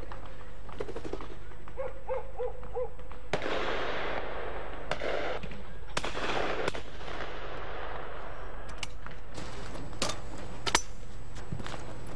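Shotguns firing on a game shoot: scattered shots, the early ones trailing off in a long rolling echo, then a quicker run of sharper shots in the second half, the loudest about eleven seconds in.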